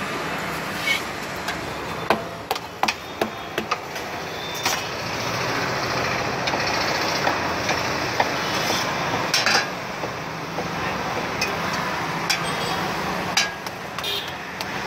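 A metal spatula clinks and scrapes against a large flat iron griddle (tawa) in sharp, irregular strikes, a quick run of them a couple of seconds in and more near the end. Under them runs a steady sizzle of buns toasting on the hot griddle.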